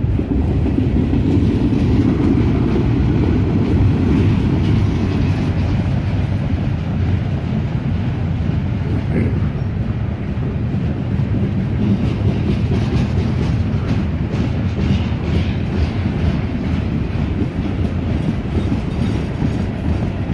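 CSX mixed freight train's cars rolling past, a steady rumble of steel wheels on the rails with a clickety-clack of wheels over rail joints.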